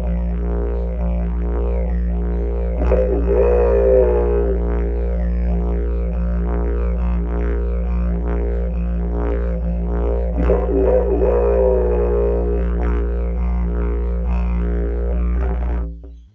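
Didgeridoo playing a steady low drone with a continuous buzz of overtones, its upper overtones sweeping up and down in vocalised swells twice along the way; the drone stops abruptly near the end.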